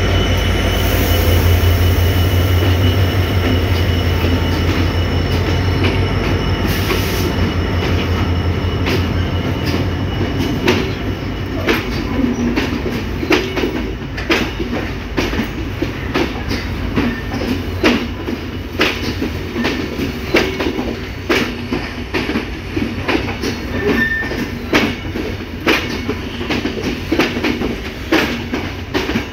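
Diesel locomotive running loud as it passes close, its low engine drone fading over the first ten seconds. After that, passenger coaches roll by with a steady rumble and repeated clacks of wheels over rail joints.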